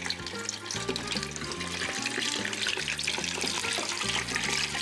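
Marinated duck legs sizzling and crackling in hot goose fat as they confit, with lots of spattering oil. Background music plays underneath.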